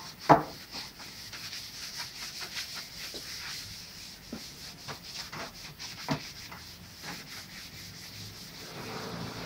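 A cloth pad rubbing wood tint into a wooden cabinet panel by hand, a steady scrubbing hiss. Sharp knocks cut in, the loudest about a third of a second in and another about six seconds in.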